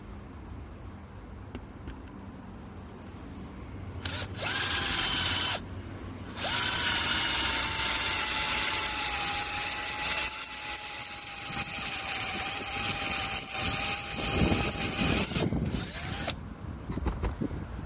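SHAWTY cordless drill's electric motor whirring in three runs. A short burst comes about four seconds in, then a longer run of about nine seconds whose pitch eases slightly downward, then a brief final burst. A few low knocks sound near the end.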